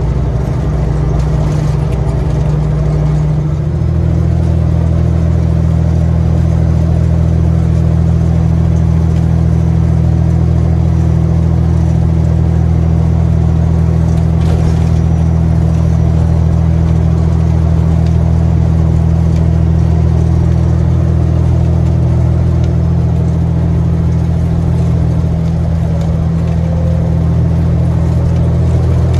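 Caterpillar 3406B inline-six diesel of a semi truck pulling steadily at road speed, heard from inside the cab. The engine note changes once about three and a half seconds in, then holds steady.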